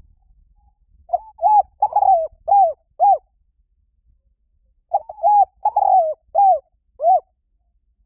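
Spotted dove cooing: two phrases of about five arched coos each, the second phrase starting about two seconds after the first ends.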